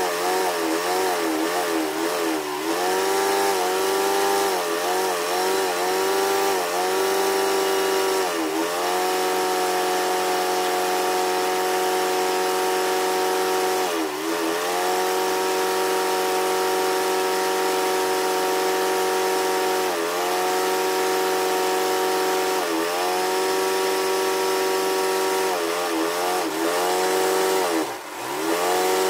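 An engine running steadily, its pitch dipping briefly and recovering every few seconds.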